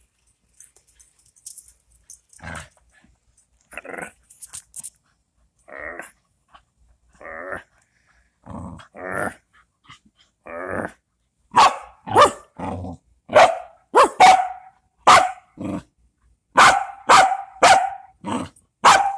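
Small dog growling and barking in short bursts while tugging on a rope toy. The bursts are soft and spaced out at first, then come as a quick, loud run of about two a second in the second half.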